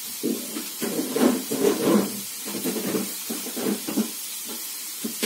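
Cubes of pork fat (salo) sizzling steadily in a frying pan as their fat renders out for crackling, with irregular lower-pitched scrapes and taps over the sizzle.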